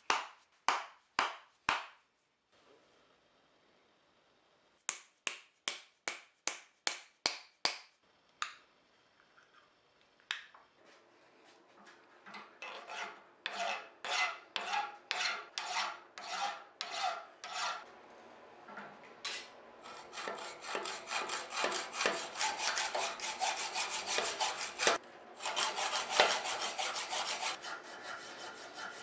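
A hand file scraping back and forth across a steel workpiece clamped in a bench vise, in rhythmic strokes that begin about ten seconds in and come faster and denser after about twenty seconds. Before the filing there are two quick runs of sharp ticks.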